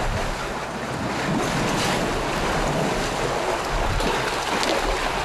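Wind buffeting the microphone outdoors: a steady rushing noise with a low rumble underneath.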